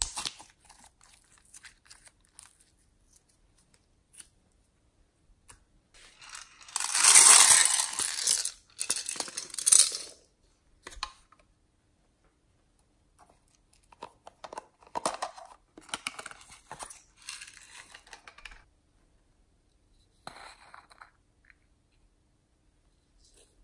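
Hands stretching, squishing and pulling apart glossy slime: sticky crackling and tearing noises in bursts, loudest for a few seconds about a quarter of the way in and again more softly later, with small plastic clicks near the end.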